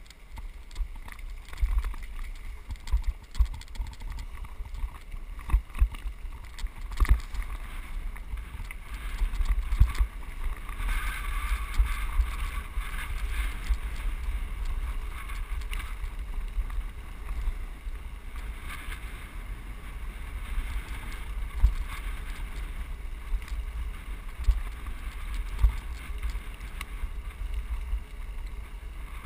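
Wind buffeting the microphone of a bicycle-mounted action camera, over a steady low rumble and frequent sharp jolts from riding a bike on a gravel road.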